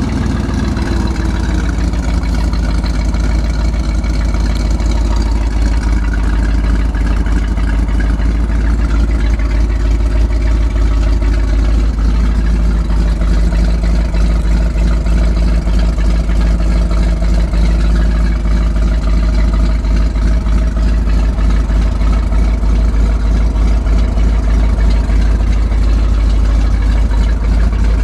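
1987 Chevrolet C70 dump truck's gasoline V8 engine idling steadily and loudly, easing down in pitch in the first second.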